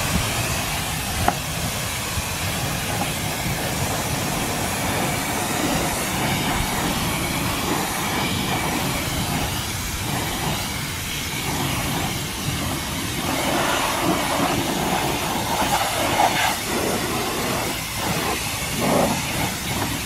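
Water jet from the Eco Rinse machine's spray wand rinsing shampoo off a truck's alloy wheel and tire, a steady hiss of spray splashing on the rubber and metal.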